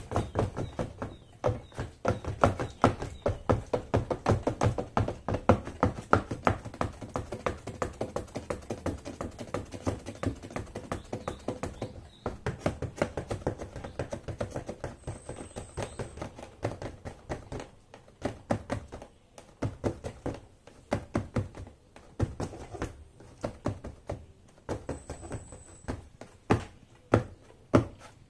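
High heels tapping rapidly on the cardboard floor of a box: a fast, continuous run of taps and thuds, softer through the middle and sharper again near the end.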